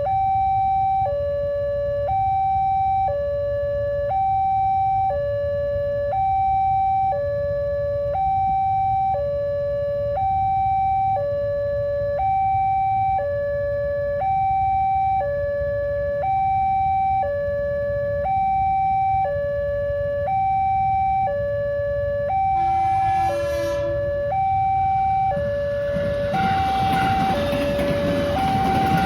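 Railway level-crossing warning siren sounding a loud two-tone hi-lo alarm, switching between a higher and a lower tone about once a second, the signal that a train is approaching and the barrier is closing. A brief burst of noise comes about three-quarters of the way in, and a rumbling noise builds over the last few seconds.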